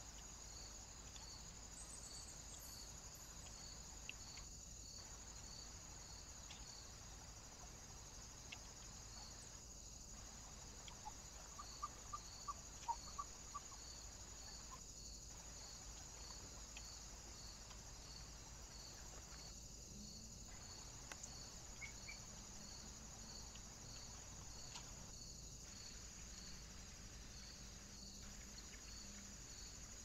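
Near silence from a trail camera's microphone: a faint steady hiss with a faint, even, high pulsing about twice a second. About halfway through, a quick run of short chirps stands out.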